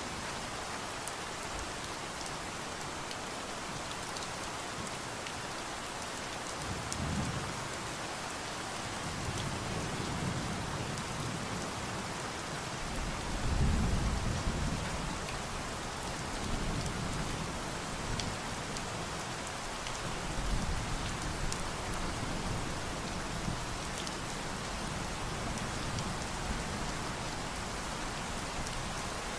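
Steady rain falling, with low rolls of thunder coming in from about seven seconds in, the loudest about halfway through.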